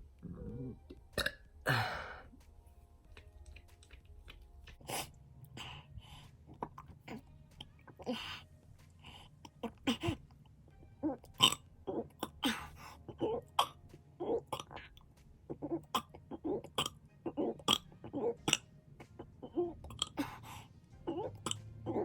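A man burping over and over: many short burps in quick succession, often less than a second apart, some much louder than others.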